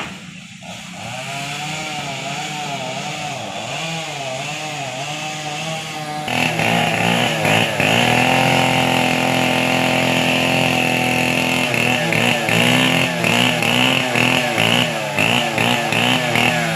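Chainsaw engine running at low, wavering revs, then opened up to full throttle about six seconds in and held there. Near the end the revs rise and fall in quick pulses.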